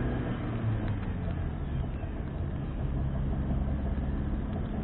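Car engine running steadily with tyre and road noise, heard from inside the cabin while driving.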